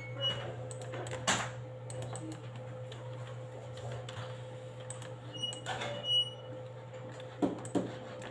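Scattered clicks of a computer mouse and keyboard keys, a few louder ones about a second in, around six seconds in and twice near the end, over a steady low hum, with a few short high beeps.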